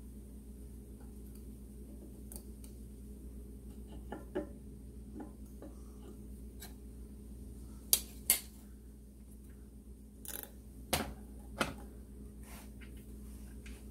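Metal engine parts and hand tools clinking and tapping during clutch disassembly: a few light taps, then two sharp clinks about eight seconds in and two more about three seconds later, over a faint steady hum.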